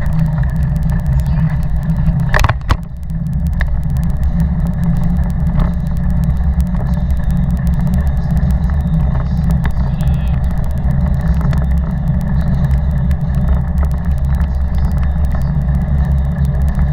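Steady low rumble of a Taga cargo bike riding along a paved path, heard through a camera mounted on its front bucket. A single sharp knock comes about two and a half seconds in.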